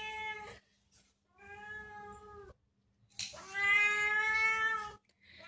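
Domestic cat meowing in long, drawn-out calls held at an even pitch: one trailing off at the start, then two more, the second the loudest and longest at about a second and a half.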